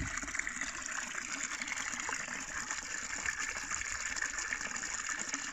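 Small woodland brook bubbling and trickling over stones and roots at a little drop, a steady babble of running water.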